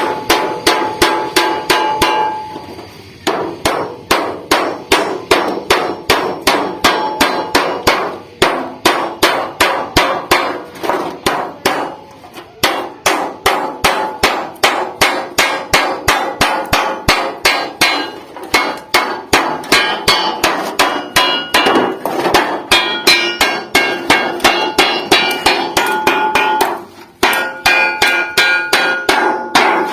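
Hammer beating on refrigerator sheet metal to close a folded seam joining two pieces into a pot: rapid, even strikes about three a second with a metallic ring, stopping briefly a few times.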